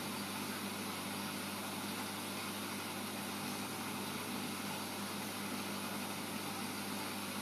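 Steady low hum of aquarium pumps with an even hiss over it, unchanging throughout.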